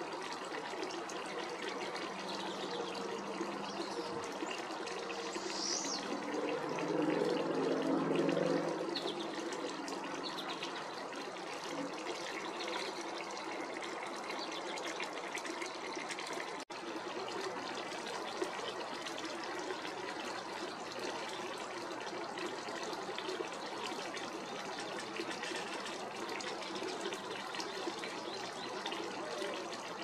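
Steady trickling, running-water noise, with a few short high chirps. A low sound swells for about two seconds around eight seconds in.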